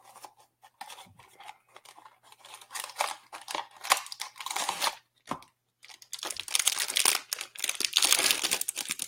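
Blind-box toy packaging being opened by hand: a crinkly bag being torn and handled. Scattered crackles come first, then a louder, denser stretch of crinkling over the last three seconds.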